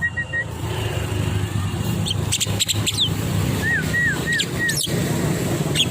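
Motorcycle engine running steadily, with a tame Javan myna giving short, high, sweeping chirps over it. A run of four quick whistled notes comes a little past the middle.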